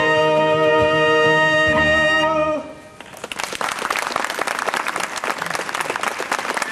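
The instrumental accompaniment of a show tune holds its final chord, which stops about two and a half seconds in. After a brief hush, an audience breaks into applause.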